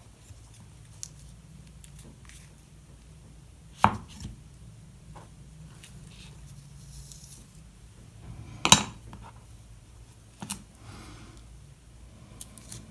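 Small workshop parts being handled and set down on a workbench: two sharp knocks, about four and nearly nine seconds in, with light clicks and taps between, over a low steady hum.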